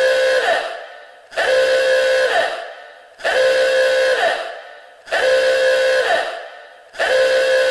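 Warning alarm horn sounding in repeated blasts, about one every two seconds, each a held tone that bends down in pitch as it dies away: an explosion-alert siren sound effect.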